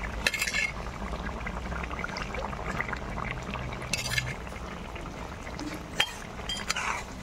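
Egg and brinjal curry simmering in a pan, with a few short clinks and scrapes against the pan as the fried eggs are added and stirred in.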